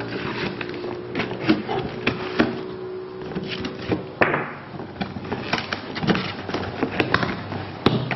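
Box cutter cutting through packing tape on a cardboard shipping box, with scattered taps and knocks against the cardboard and one longer scraping stroke about four seconds in.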